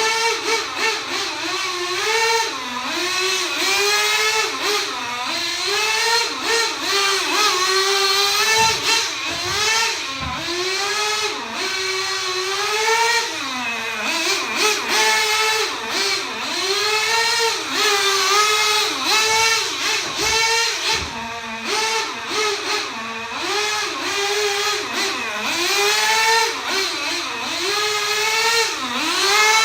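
Small two-stroke nitro glow engine of a 1/16 HSP Thunderfire RC truck revving up and down over and over, a high buzzing note that rises and falls every second or two under constantly changing throttle.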